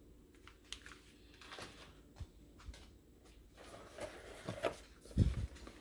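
Hands rummaging in a cardboard box packed with newspaper: scattered light rustling and small knocks, growing busier toward the end, with one dull thump about five seconds in.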